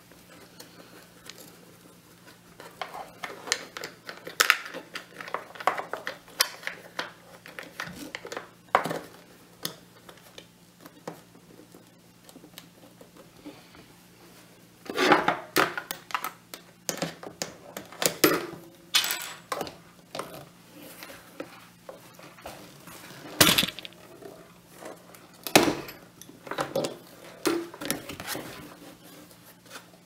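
Hand pop-rivet gun being worked to set pop rivets through a guitar-case latch: irregular metallic clicks and clacks as the handles are squeezed, broken by several sharp snaps, the loudest about two-thirds of the way through, as the rivet mandrels break off.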